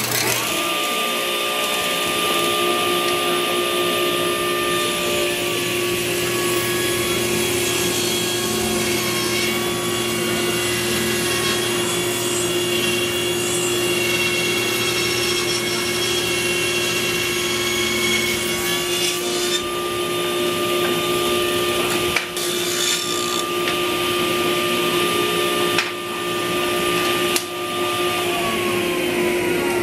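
Table saw running steadily with its blade spinning, ripping 8/4 poplar into frame parts. The hiss of the cut swells as each board is fed through the blade and eases between cuts.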